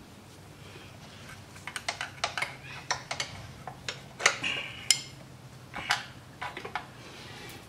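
Hand tools clicking and clinking on metal while the engine's side-cover bolts are worked loose: an irregular run of sharp clicks, the two loudest a little past the middle.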